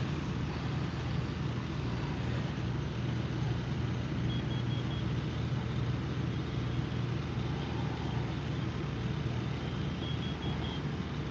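Steady low rumble of fire apparatus engines running at the scene. Two short runs of faint high beeps come through, about four seconds in and near the end.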